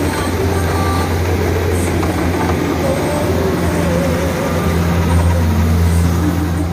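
Rice combine harvester running steadily at work, its engine a loud, even, deep drone.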